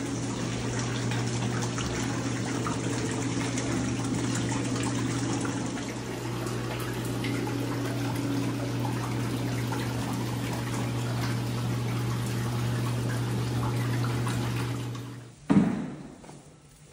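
Water running steadily from the faucet into a bathtub as it fills, with a steady low hum under the splashing. It stops shortly before the end, followed by a single sharp thump, the loudest sound here.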